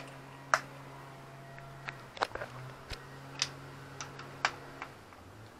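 About ten sharp clicks and light taps, spaced irregularly, from hands working a motorcycle's ignition switch and engine parts, over a steady low hum.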